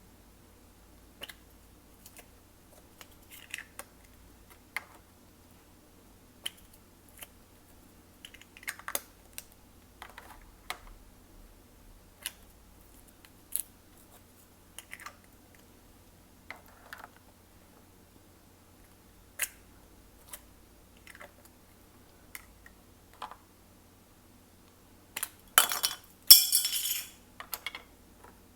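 Glossy slime being worked by hand, giving scattered sticky clicks and pops every second or two, with a louder burst of crackling about three-quarters of the way in.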